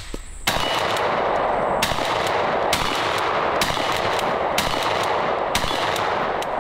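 Tokarev USA TX3 12-gauge pump-action shotgun firing 00 buckshot in rapid fire, six shots about a second apart, pumped between each shot.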